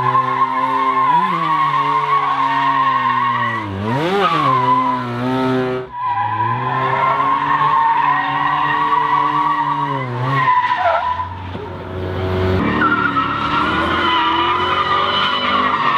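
Drift cars sliding: engines revving hard, rising and falling in pitch, over a continuous high tyre screech. The sound breaks twice as the shots change.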